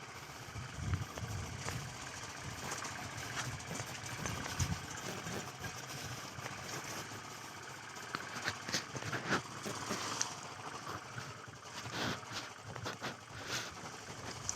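Motorcycle engine running at low revs while riding up a muddy off-road track, with scattered short knocks and clatter from the rough ground.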